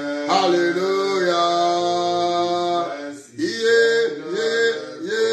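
A man singing a worship chorus unaccompanied, holding one long phrase and then, about three seconds in, moving into a run of short repeated syllables, each rising and falling in pitch.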